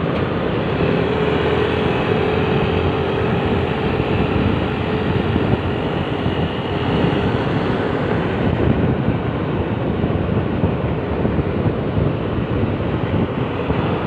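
Wind rushing over the microphone and road and engine noise from a Yamaha motor scooter riding along at speed, with a steady drone that fades out about seven seconds in.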